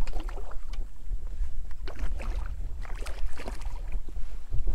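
Steady low wind rumble on the microphone, with scattered light clicks and knocks from handling the rod, net and boat while a redfish is being fought from a small skiff.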